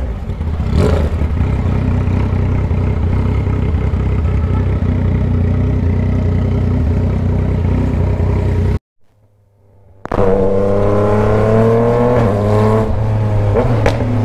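A straight-piped Yamaha Tracer 900's three-cylinder engine runs at low revs with a rough, rapid pulsing. Partway through, the sound cuts out for about a second, then comes back with the engine pulling steadily under throttle.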